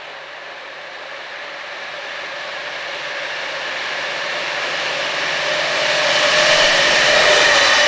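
81 class diesel locomotive 8180 approaching at the head of a freight train, its engine noise growing steadily louder as it draws near. A steady whining tone comes through clearly in the last few seconds as the locomotive comes close.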